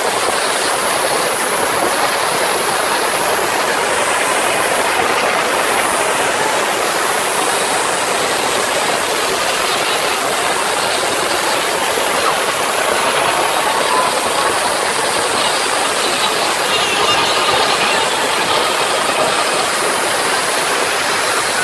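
Concert crowd cheering and screaming, heard close up as a loud, steady, distorted wash of noise with no beat in it.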